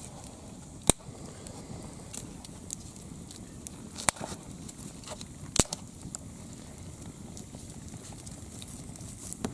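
Wood campfire crackling, with three sharp, loud pops spread through it among many smaller crackles.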